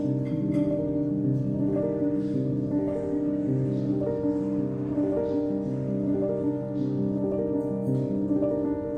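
Instrumental background music: gentle piano-led melody with sustained chords.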